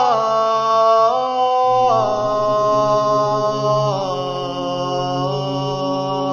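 Chanted vocal music: a single voice holds long, drawn-out notes, shifting to a new pitch every second or two, over a steady low drone.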